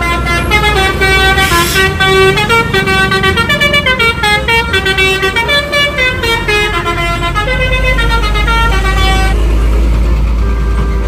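Bus telolet horn (Basuri multi-tone horn) playing a fast stepping melody of several notes at once, loud, over the low steady rumble of the bus engine. The horn stops about nine seconds in while the engine keeps running.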